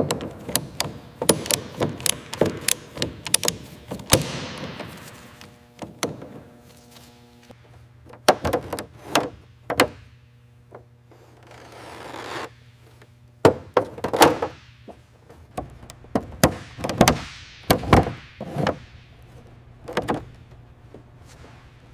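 Hand work on a corroded aircraft structure: irregular knocks and thuds, with scraping that comes and goes three times.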